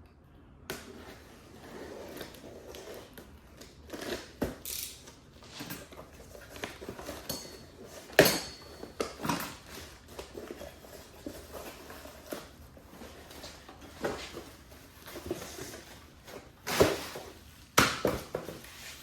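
Unpacking by hand: rustling of cardboard and packing material with scattered knocks and clinks of a metal part being handled. The sharpest knock comes about eight seconds in, with two more near the end.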